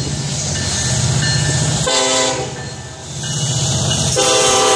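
Freight locomotive horn sounding at a grade crossing: a short blast about two seconds in, then a long blast starting near the end, the close of the standard crossing signal. A low, steady rumble from the approaching train fills the gaps between blasts.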